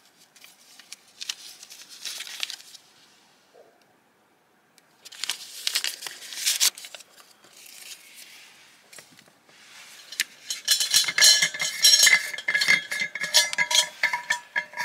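Paper tea-bag wrapper torn and crinkled in two spells in the first half. From about two-thirds of the way in come a quick run of metal clinks with a lingering ring, from a vacuum flask being handled beside an enamel mug.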